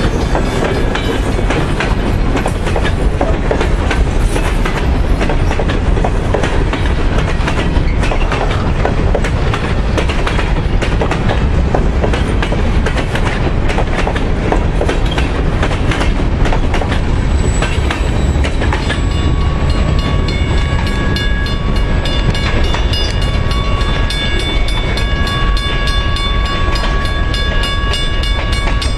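Freight train's boxcars and flatcars rolling past at close range: a steady rumble with dense wheel clicks. About two-thirds of the way through, the clicking thins as the end of the train goes by, and several steady high tones come through.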